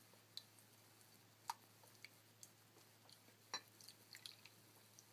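Near silence: an ultrasonic mist maker running in a glass of water, with scattered faint ticks and drips of water, the two clearest about a second and a half and three and a half seconds in, over a steady low hum.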